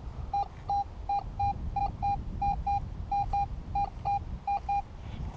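Garrett AT Pro metal detector beeping at a strong target: seven pairs of short, steady, mid-pitched beeps, one pair for each back-and-forth sweep of the coil. This is a solid, repeatable signal reading 84 to 91 on the target ID.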